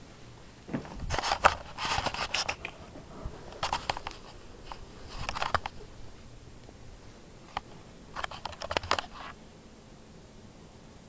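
Close scratching and scraping in several short bursts: a cat's paws and claws scrabbling at the carpet as it pounces on a moth.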